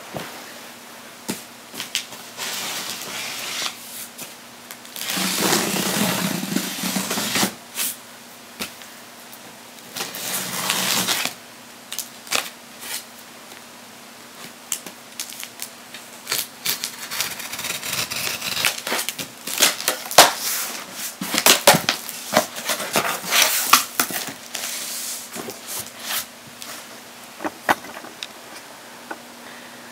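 Cardboard shipping box wrapped in plastic film being cut and opened by hand: the plastic wrap crinkling and tearing, a small box cutter scraping along the taped seams, and the cardboard flaps being pulled back. It comes as scattered crackles and clicks, with two longer rustling stretches in the first half and a dense run of crackles in the second half.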